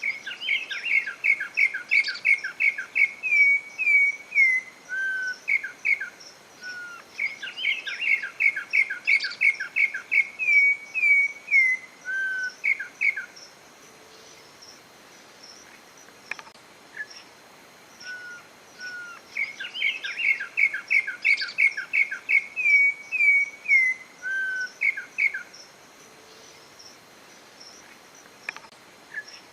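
Campo troupial (corrupião) singing: three bouts of fast, repeated whistled notes, each lasting about five seconds. Quieter single notes fall in the pauses between bouts.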